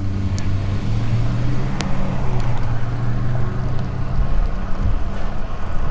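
A motor vehicle's engine hum going by in traffic, rising a little about a second in and fading out near the end, over a low rumble. There is one sharp click just under two seconds in.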